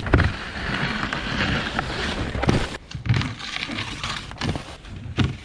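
Rushing wind noise on the camera microphone mixed with skis scraping over packed snow, heaviest in the first half, with a few sharp knocks.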